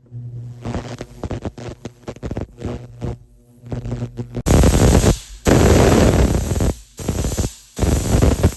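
Jewellery cleaning: about halfway in, a pressurised spray cleaning the finished ring gives several loud bursts of hiss, each about a second long with short breaks. Before that, a run of light clicks and taps over a low steady hum.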